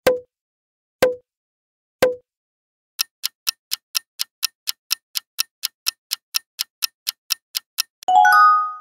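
Quiz sound effects: three pops a second apart as the answer options appear, then fast countdown-clock ticking, about four and a half ticks a second, ending in a short ringing chime as the timer runs out.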